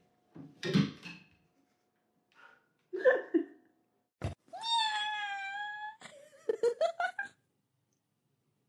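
A cat meowing: a few short calls, then one long drawn-out meow about halfway through, followed by a quick run of short meows. A sharp knock comes just before the long meow.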